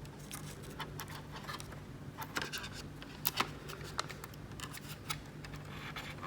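Scattered light clicks and scratches of small parts being handled while a temperature sensor is re-attached inside a 2009 Mac Mini, over a faint steady low hum.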